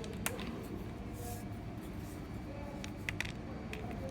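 A few sharp clicks and a soft rustle from handling the plastic parts of a landing-net handle, over a steady low background hum; the clicks fall once near the start and twice in quick succession about three seconds in.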